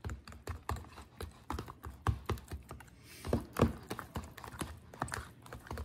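Metal fork stirring a thick, lumpy gravy mix in a plastic tub, making quick, irregular clicks and scrapes against the container.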